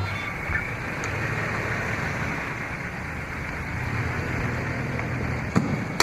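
A vehicle driving, with steady road and engine noise, and two short sharp clicks near the end.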